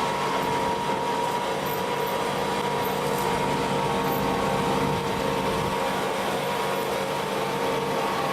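Fishing vessel's machinery running steadily, a constant hum with several fixed tones over a mechanical rumble.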